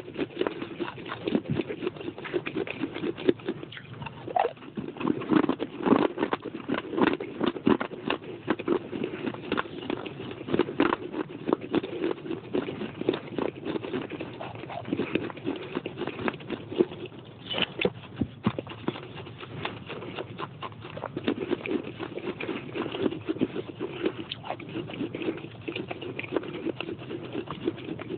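Close-up chewing of baked clay pot pieces: a dense, irregular run of crunching clicks.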